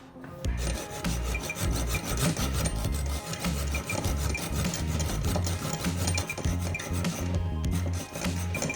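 Hand filing or abrasive rubbing: rapid, repeated rasping strokes against a workpiece, over low background music.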